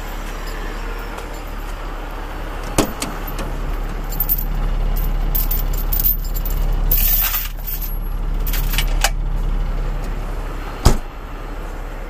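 A truck running with a steady low hum, with metallic rattling and jingling throughout and a single sharp knock about eleven seconds in.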